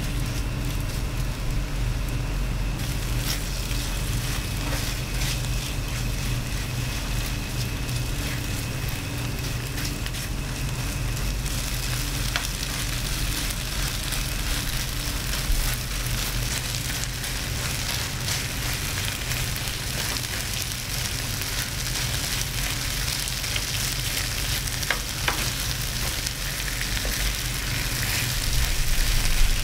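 Gochujang-marinated pork belly sizzling on a foil-lined tray over a gas flame, stirred and pushed around with a plastic spatula. The sizzle grows stronger about 3 seconds in and again about 12 seconds in, over a steady low hum, with a few sharp clicks.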